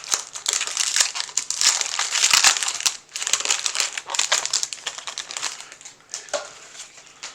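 Foil booster pack wrapper crinkling as it is torn open and handled, with a dense crackle that is loudest for the first three seconds and then softer.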